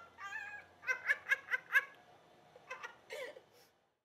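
A woman's high-pitched cackling laugh. A drawn-out opening note is followed by about five quick 'ha' pulses a second or so in, then a shorter burst of laughter near the end.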